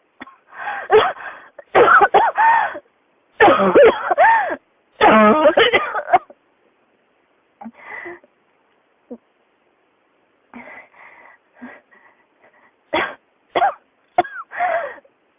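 A person in a coughing fit that won't stop: a long run of harsh coughs back to back for about the first six seconds, a quieter stretch of small coughs, then a few sharp single coughs near the end.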